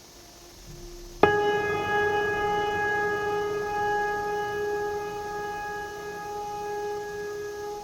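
A steady high-pitched machine whine, likely the motor of a concrete-cutting saw. It comes in abruptly with a sharp click about a second in and fades slightly after.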